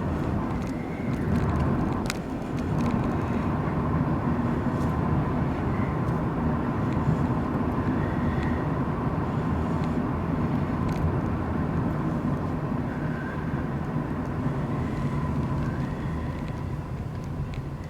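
A car in motion: a steady drone of engine and road noise, with a few faint clicks.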